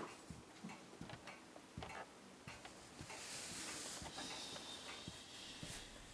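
Quiet room tone with faint, irregular small ticks and clicks, and a soft hiss from about three seconds in to about five seconds in.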